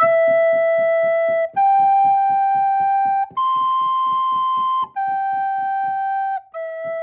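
A plastic recorder playing five held notes, each about a second and a half long, stepping up in pitch and then back down. The notes are control signals for a stepper motor, which turns clockwise for higher pitches and counterclockwise for lower ones; faint regular ticking of the motor stepping runs under the notes.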